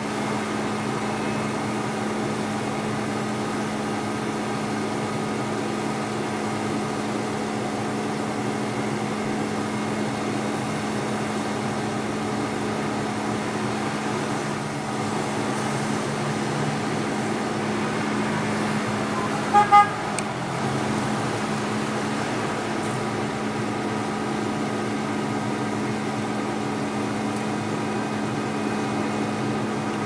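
Bucket truck's engine running steadily while its hydraulic boom folds down. About twenty seconds in, a vehicle horn gives two short toots.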